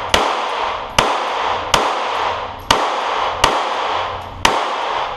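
Pistol fired six times at an uneven pace, roughly one shot a second, each report followed by a long echo off the walls of an indoor range.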